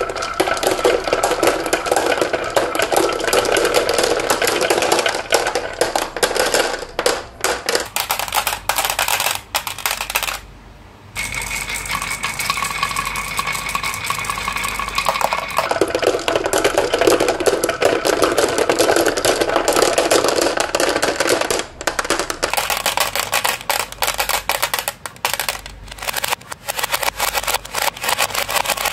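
Many glass marbles rolling and clattering down wooden and plastic marble-run tracks: a dense run of clicks and knocks over a rolling rumble that comes and goes, with a brief break about ten seconds in.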